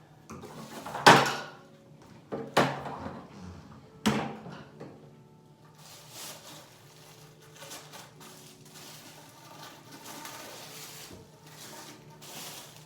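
Three sharp knocks of hard vacuum cleaner parts being handled, about a second and a half apart, followed by quieter clattering and rustling as the parts are moved about.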